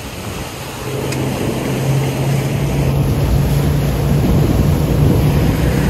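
Bank of Mercury outboard motors running under way, a steady low hum that grows louder from about a second in, over the rushing wash of the wake.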